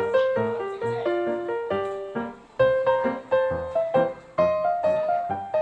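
Background piano music: a melody of single notes over a lower accompaniment, with two brief pauses between phrases.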